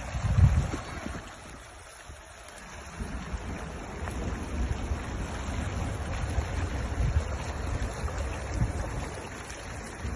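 Flash-flood torrent rushing down a wadi, a steady noise of flowing water, with wind buffeting the microphone in low gusts, hardest about half a second in.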